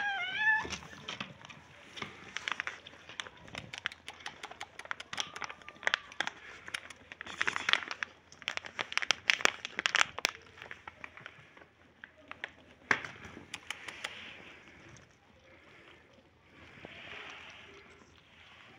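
A kitten meows briefly right at the start. Then a plastic milk packet crinkles as milk is poured into a plastic bowl, and several kittens lap at the milk together in a dense run of small clicks and crackles that thins out after about 14 seconds.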